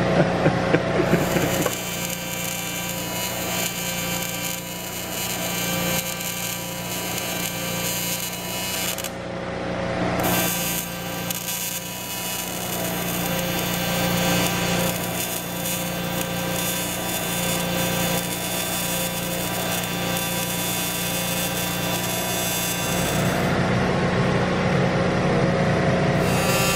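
TIG welding arc buzzing steadily as the aluminum frame is welded and filler rod is fed in, with a short break in the arc about nine seconds in.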